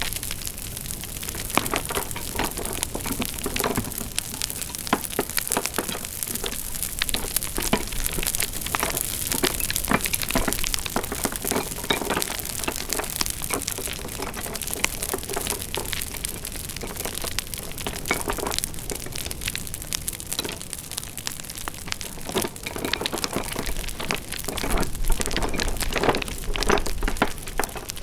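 Wood fire crackling: a steady hiss with dense, irregular pops and snaps, a little louder near the end.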